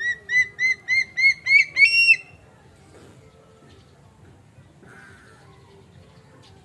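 A bird calling: a run of about eight short, clear notes that come faster and climb in pitch, the last ones loudest, stopping about two seconds in.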